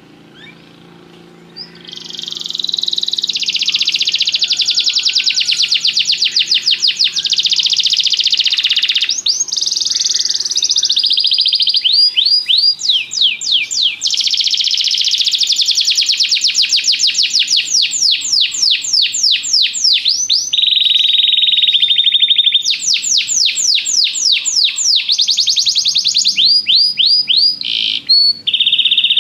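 Domestic canary singing: a long, loud song of fast trills and rolls that starts about two seconds in, in phrases with short breaks between them.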